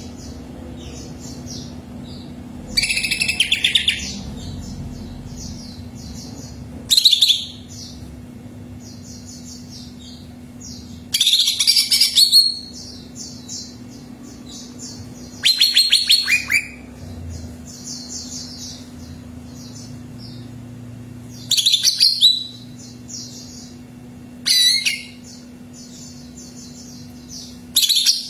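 Cucak ijo (green leafbird) singing: loud, short bursts of varied song about every four seconds. Between the bursts, a run of quick, high chirps repeats continuously over a steady low hum.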